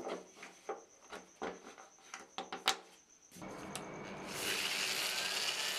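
Faint rubbing and ticking of fingers pressing a sticker down over a plastic housing on a surfboard. About three seconds in, an angle grinder fitted with a sanding disc starts sanding the surfboard's dried fibreglass laminate flush, a steady grinding hiss that grows louder about a second later.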